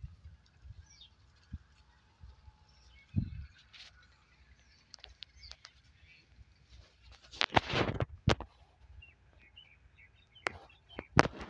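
Small birds chirping here and there, with a low rumble of wind on the microphone. Dry stalks rustle and crackle loudly in two spells in the second half as goats browse through the brittle bushes.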